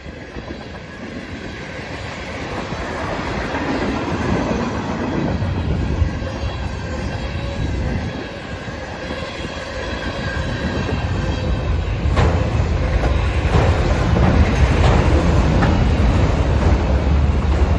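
Norfolk Southern manifest freight train rolling past, its rail cars rumbling and clacking, growing louder with repeated sharp wheel clicks in the second half.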